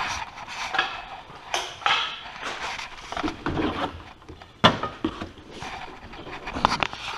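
Handling noise from a car's body and interior trim: a string of sharp clicks and knocks with rustling between them. The loudest knocks come about a second and a half in, just under five seconds in, and again near the end.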